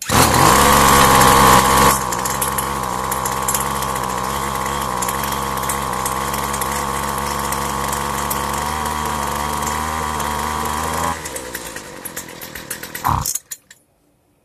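Two-stroke string trimmer engine running fast, louder for the first two seconds and then steady, with its carburetor's high-speed screw just reset a quarter turn open. About eleven seconds in it falters and runs unevenly, picks up briefly, and dies suddenly near the end.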